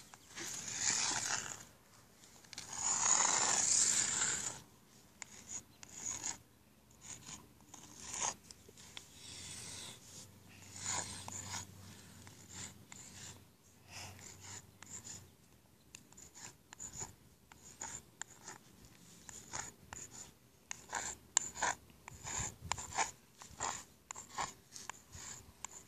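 Sidewalk chalk scraping over rough asphalt in short, irregular strokes that come quicker near the end. Two louder rustles in the first few seconds.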